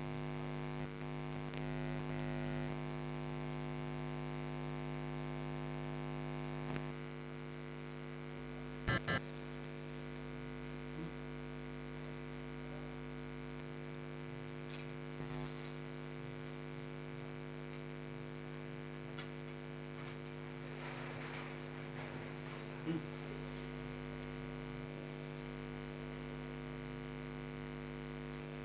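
Steady electrical mains hum, with a pair of short clicks about nine seconds in and a few fainter ticks.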